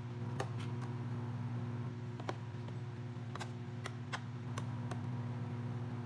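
Lid lifted off a microwave cooking box, then a metal spoon knocking against the box while stirring: a string of light, sharp clicks at an uneven pace over a steady low hum.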